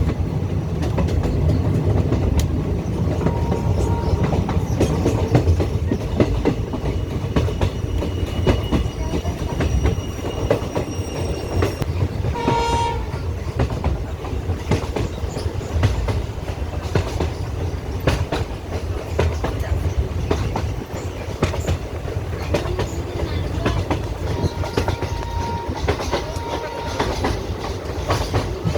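A train running along the track with a steady low rumble and repeated clicking of wheels over rail joints. A brief horn note sounds about halfway through.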